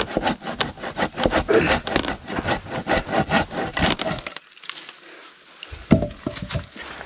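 Hand saw cutting through a fallen log of damp, mossy wood in quick back-and-forth strokes. The sawing stops a little after four seconds in, and a few knocks of wood follow around six seconds in.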